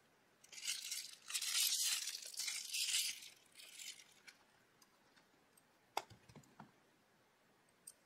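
Clear plastic wrap crinkling and tearing as a folding knife is unwrapped from its box, for about three seconds. Then a few light, short clicks as the bare knife is handled.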